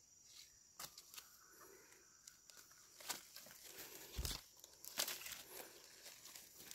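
Faint rustling and crackling of dry leaf litter, with scattered soft clicks and one dull thump about four seconds in, as a hand moves through the undergrowth to reach a mushroom.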